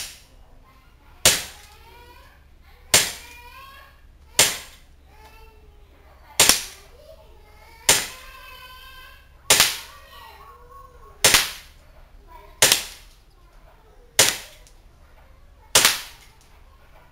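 WE Sig Sauer P226 gas-blowback airsoft pistol firing ten single shots, spaced about one and a half seconds apart, each a sharp crack that dies away quickly.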